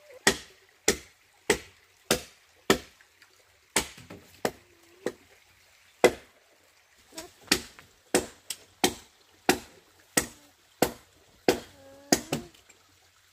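Wood being chopped by hand with a blade on a felled tree trunk: some twenty sharp, single strikes, about one every half second to second, with a short break about five seconds in.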